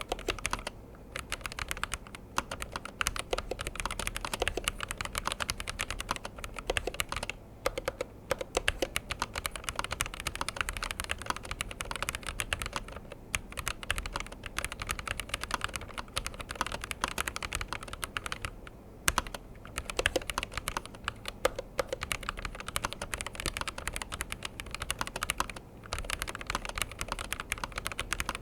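Fast, continuous typing on a Razer BlackWidow V4 Low Profile HyperSpeed low-profile mechanical keyboard: a dense run of key clacks with brief pauses every few seconds.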